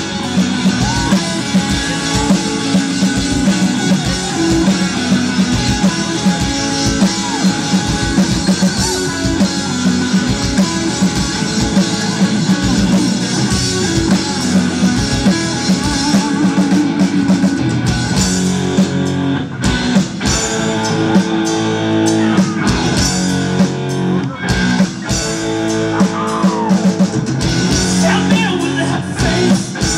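Live rock band playing: electric guitars, bass guitar and drum kit with a steady beat, and some singing.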